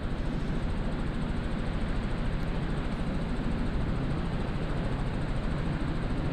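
Robinson R44 Raven II helicopter in flight, heard from inside the cockpit: the steady drone of its six-cylinder piston engine and rotor, with a fast, even pulsing.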